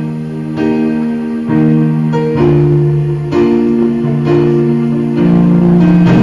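Instrumental worship music without singing: held chords that change every second or so.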